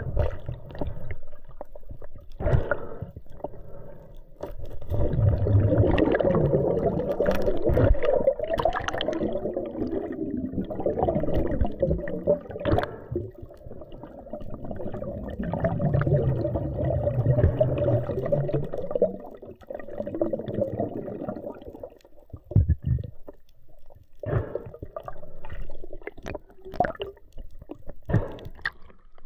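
Muffled underwater water noise picked up by a mask-mounted camera as a freediver moves through the water. It swells up twice for several seconds at a time and is broken by scattered sharp clicks and knocks, more of them near the end.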